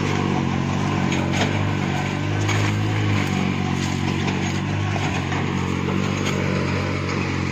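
Petrol-engined three-wheeled cargo cart driving slowly over rough orchard ground, its engine running steadily under load, with a few sharp knocks and clatters.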